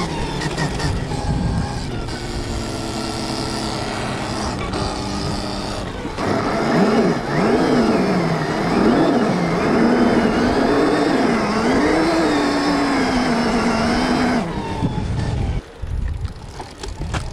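Stark Varg electric dirt bike's motor whining as it is ridden through a rolling burnout; the whine holds a steady pitch at first, then grows louder about six seconds in and swings up and down in pitch again and again as the throttle is worked, before cutting off near the end, followed by a few knocks and rumble.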